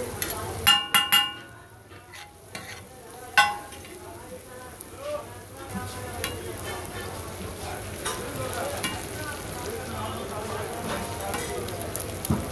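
Egg bhurji sizzling and frying on a large flat griddle while metal spatulas scrape and stir it. Several ringing metal clanks from the spatulas come about a second in and once more at about three and a half seconds.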